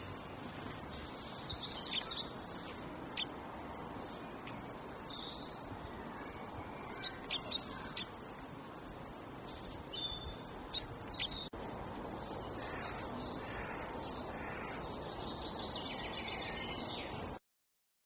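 Small songbirds chirping and tweeting in short high calls, scattered irregularly over a steady background hiss. The sound cuts off abruptly near the end.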